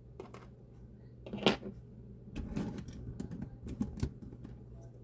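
Hard plastic parts of a Transformers Hound figure clicking and knocking as it is handled and transformed, with a sharper knock about a second and a half in and scattered smaller clicks after it.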